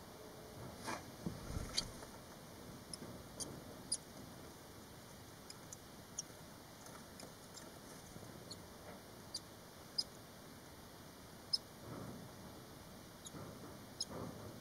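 Five-day-old barn swallow nestlings giving short, high squeaky cheeps at irregular intervals, with a few lower rustles.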